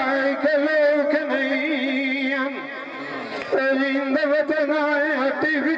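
A male singer performing a Saraiki dhola folk song: a high, wavering, ornamented vocal line. It drops away briefly mid-way and comes back strongly about three and a half seconds in.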